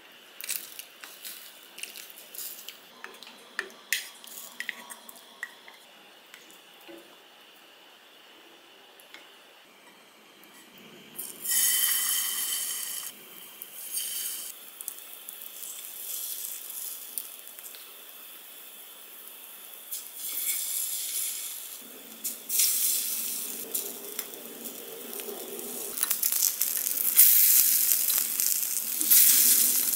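Small clinks and taps of a metal bowl and utensils at a clay pot. Then, from about eleven seconds in, spoonfuls of mini vegetable pancake batter sizzle in hot oil in a frying pan, growing louder near the end as several pancakes fry at once.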